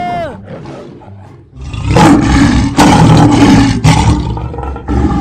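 A tiger roaring, loud and rough, in several long surges from about a second and a half in. It follows a short tone that slides down in pitch at the start.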